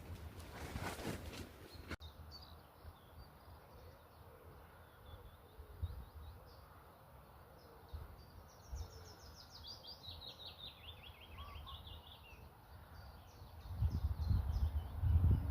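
Songbirds singing outdoors: short high chirps throughout, and one song of about twenty quick notes that falls steadily in pitch over a couple of seconds, a little past halfway. Wind buffets the microphone at the start and again near the end.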